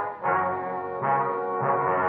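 Dramatic brass-led orchestral music cue, a scene-ending sting. It is held chords that change about a quarter second in and again about a second and a half in.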